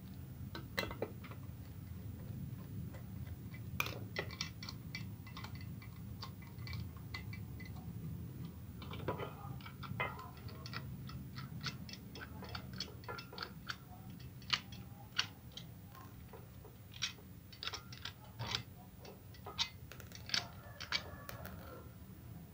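Irregular light clicks and taps of the plastic housing, bracket and screws of a horn-speaker driver unit being handled and taken apart by hand, over a low steady hum.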